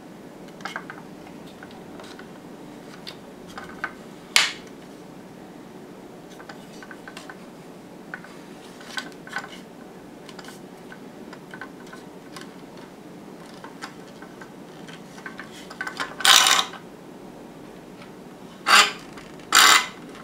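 Jorgensen plastic-and-metal miter box being handled while its swivel angle is set: scattered small clicks and knocks, a sharp click about four seconds in, and three louder clattering knocks near the end.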